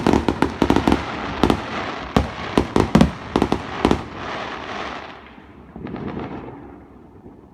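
Fireworks going off in a dense barrage of bangs and crackling, which thins out about four seconds in and fades to a few scattered crackles near the end.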